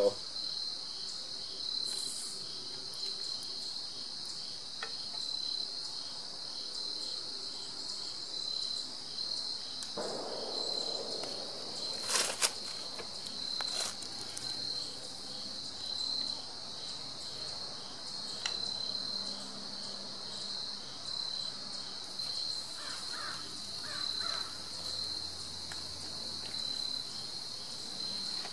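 Steady chorus of singing insects, a high pulsing trill that carries on evenly throughout, with two sharp clicks a little before and after the halfway point.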